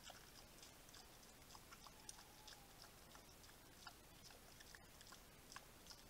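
Wild boar feeding with its snout in dry leaf litter: faint, irregular crunching and clicking of chewing and rooting, over a steady hiss.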